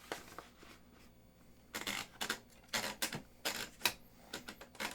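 1963 Olivetti Studio 44 manual portable typewriter being typed on: after a short quiet start, a run of sharp key strikes, the typebars snapping against the platen about three or four times a second. The machine is freshly cleaned and serviced and works smoothly.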